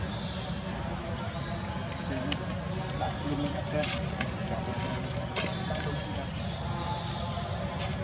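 Steady, high-pitched insect chorus, with a low rumble underneath and a few faint ticks.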